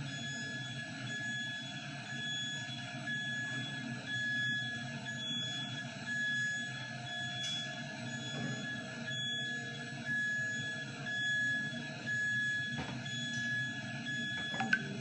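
Large electron-beam welding vacuum chamber's carriage and turntable driving a heavy component into the chamber: a high-pitched warning tone sounds over a low machinery drone.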